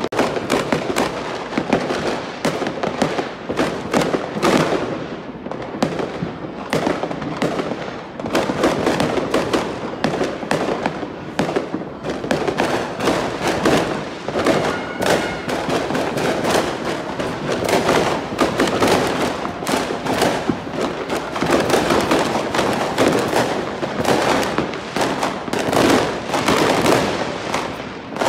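Many fireworks going off at once: a dense, unbroken crackle of overlapping bangs and pops.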